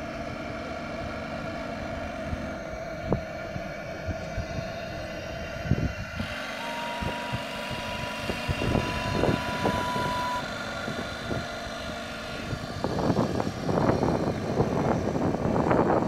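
A model steam boat's steam whistle blowing one steady note for about four seconds, a little after the middle, over a steady motor hum. Rough, gusty noise with scattered knocks takes over near the end.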